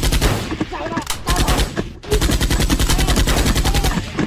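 Rapid automatic gunfire, about a dozen shots a second, in two bursts: one ending just after the start and another of nearly two seconds from about two seconds in.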